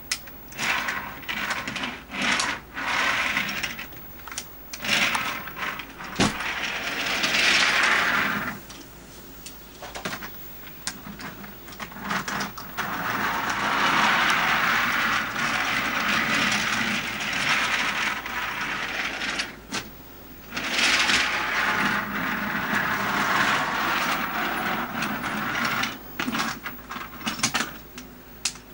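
Wooden toy train engines and track pieces handled on a wooden train table: clacks and knocks of wooden pieces, with long stretches of rattling as an engine's wheels are pushed along the wooden track.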